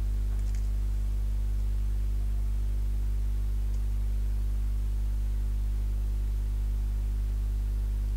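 Steady low electrical mains hum with a buzzy stack of overtones, unchanging throughout, with a couple of faint clicks about half a second and four seconds in.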